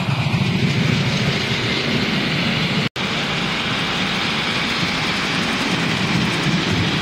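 Miniature live-steam railway train running on its track: a steady rumble from the ride-on cars with a hissing haze above it. The sound drops out for an instant about three seconds in.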